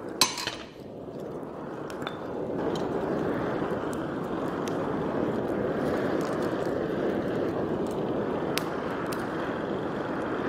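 Kindling fire burning in a coal forge, with sharp pops and crackles, the loudest one just after the start. Under them runs a steady rush of air from the forge's electric blower, which grows louder about two and a half seconds in.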